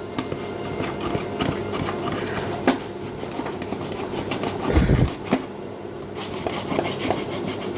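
Potato being slid back and forth over a plastic mandoline-style slicer, giving a run of scraping strokes and small clicks, with a low thump about five seconds in.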